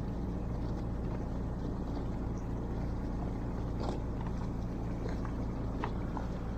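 A fishing boat's engine running steadily with an even low hum, with a few faint clicks over it.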